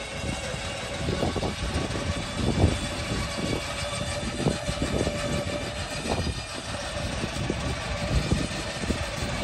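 Heavy machinery running with a steady whine, under irregular metallic clanks and knocks from a chained Allis-Chalmers HD6 crawler dozer and its steel tracks. The loudest knock comes between two and three seconds in.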